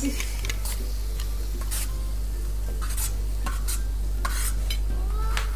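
Metal spatula scraping and knocking against a large wok as chilies are stir-fried, over a steady sizzle.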